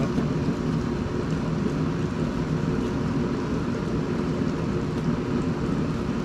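Deep fryer oil bubbling steadily around battered fish fillets, a dense low rumble with a few faint crackles.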